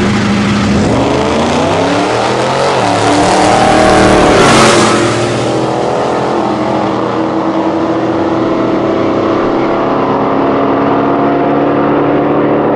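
Two Ford pickup trucks launching side by side on a drag strip at full throttle, their engines climbing in pitch through the gears. The sound is loudest about four to five seconds in, then settles to a steady engine note as they run down the track.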